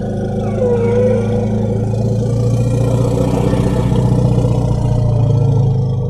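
Tyrannosaurus rex roar sound effect: a long, deep, steady rumbling growl, with a short wavering higher cry over it within the first second.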